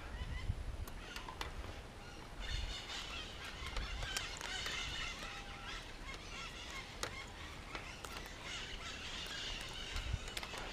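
A chorus of many short, overlapping honking animal calls, repeating throughout.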